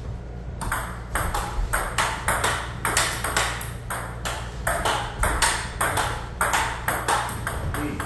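Table tennis rally: the celluloid ball clicking off the rubber paddles and the table top in quick alternation, about two to three hits a second, starting about half a second in.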